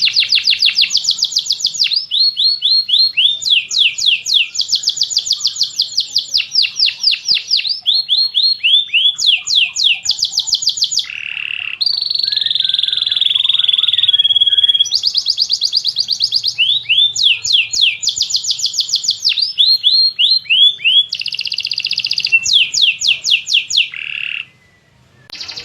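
Domestic canary singing a long continuous song: rapid trills of repeated chirps, changing phrase every second or two, with a brief pause near the end.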